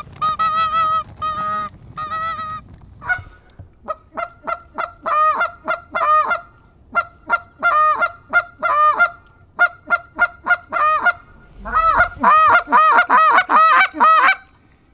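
Hunters' goose calls blown in a long run of short Canada-goose honks and clucks, each note breaking upward in pitch, growing quicker and denser near the end.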